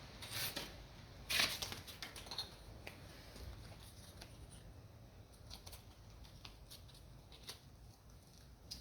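Scattered light scrapes and clicks of hand work on a guitar, with two louder scraping strokes about half a second and a second and a half in.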